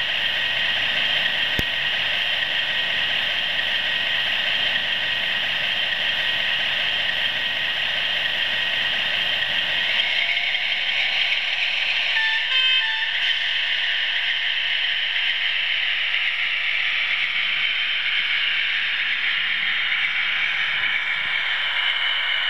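Model trains running on the layout's track: a steady whirring rattle of small motors and wheels, with a few short high tones about twelve seconds in.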